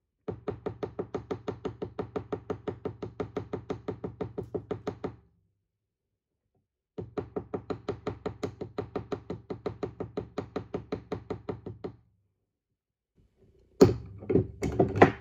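Small jewelry hammer tapping 18-gauge copper wire against a steel bench anvil, using the hammer's round end to texture the wire. The taps come in two runs of quick, even, light strikes, about six a second, with a pause of about two seconds between them. A few louder, irregular clunks follow near the end.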